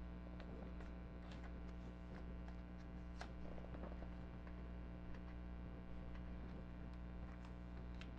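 Steady low electrical mains hum, with faint scattered ticks and soft plastic rustles as trading cards are slid into the pockets of a plastic binder page.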